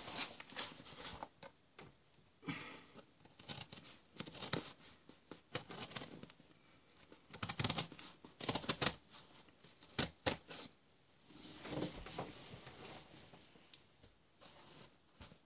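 A small folding knife slitting the packing tape on a cardboard box, with blade scrapes, tape tearing and light knocks against the cardboard coming in short, irregular bouts.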